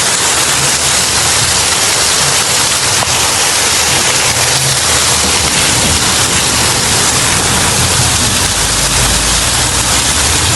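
Heavy rain making a loud, steady hiss, with a low rumble underneath.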